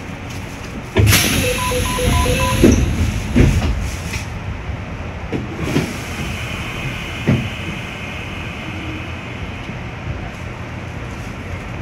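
Passenger train's doors closing at a station: a sudden hiss of air, a quick run of short electronic beeps, then a few heavy thuds as the doors shut, over a steady low rumble. A few clicks follow.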